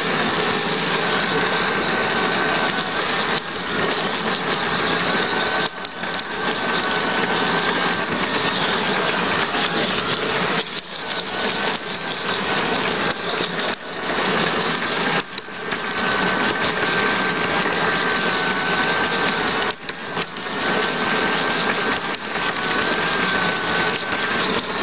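Garden-scale model train running along the track, picked up from on board: a steady rattling rumble of wheels and gearing with a faint motor whine, dipping briefly a few times.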